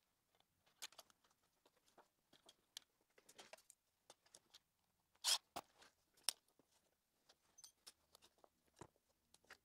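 Small plastic clicks, snaps and rustles as a wiring harness is pried out of a Roomba 670's segmented black plastic wire channel with a metal pick. A sharper snap comes about five seconds in, and another about a second later.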